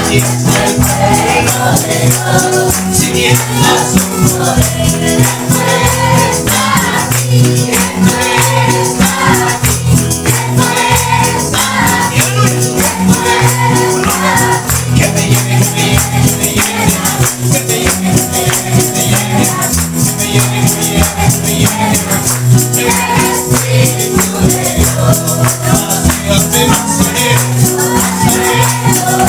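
A congregation singing a worship song together, accompanied by guitar, with a tambourine jingling a steady, rapid beat throughout.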